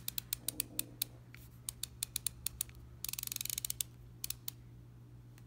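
Ratchet mechanism of a Snap-On ratcheting screwdriver clicking as the steel shaft is turned in the handle: single clicks at first, then a fast run of clicks about three seconds in, then a few more.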